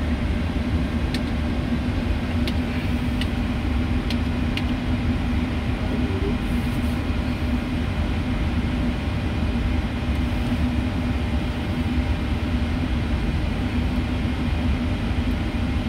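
Steady hum of a powered-up Boeing 737NG cockpit on the ground, with a low rumble and a held mid-pitched tone, plus a few faint ticks in the first few seconds.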